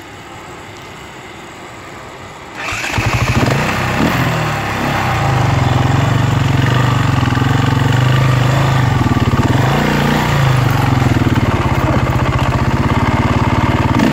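KTM 400 EXC's single-cylinder four-stroke enduro engine: quiet for the first couple of seconds, then firing up about two and a half seconds in and running hard, revving up and down as the bike works through mud.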